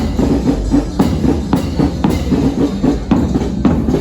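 Music with drums: a run of drum strikes over short, low pitched notes.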